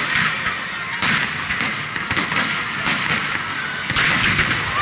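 Fireworks display: aerial shells bursting overhead in a quick series of booms, roughly one every half-second to second, getting louder near the end.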